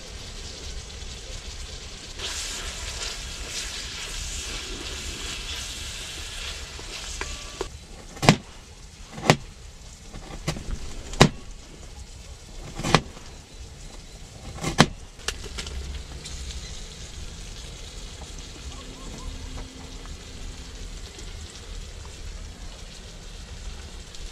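Kitchen knife peeling a potato with a soft scraping hiss, then knife work cutting a carrot with five sharp knocks one to two seconds apart.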